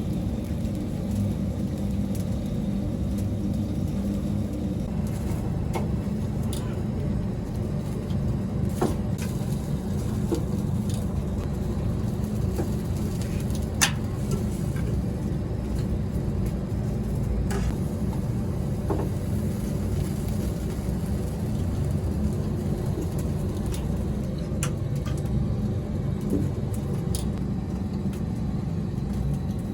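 A steady low mechanical rumble, with scattered sharp clicks and taps.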